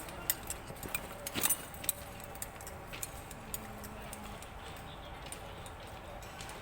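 Irregular light clicks and knocks, many close together in the first two seconds, then fewer and more spread out, over a faint steady background.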